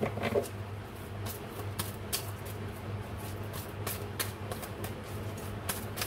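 A deck of oracle cards being shuffled by hand: a run of irregular crisp snaps and clicks as the cards slap and slide against each other.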